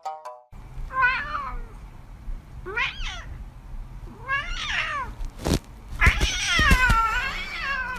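A domestic cat meowing four times, with short calls that rise and fall in pitch and a final long, wavering meow. A sharp knock comes about halfway through.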